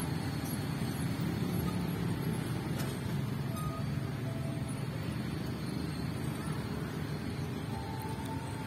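Steady low engine rumble, with a steady high tone starting near the end.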